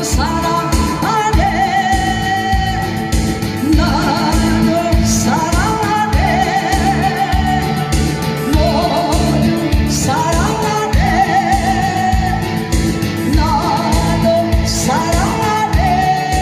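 A singer holding long, wavering notes over a recorded backing track with a steady beat.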